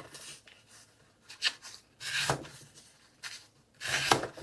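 Kizer Hare Nitro-V fixed blade slicing cardboard: several separate scraping cuts, the two strongest about two seconds in and near the end, a test of whether the edge still cuts after being dulled on a cutting board.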